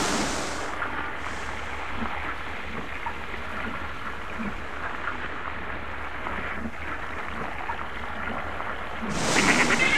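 Murky, polluted stream water gurgling and bubbling as a steady sound effect. A harsh animal cry breaks in near the end.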